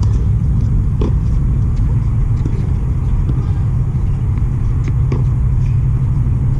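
Steady low outdoor rumble, with a few faint taps about a second in and again near five seconds.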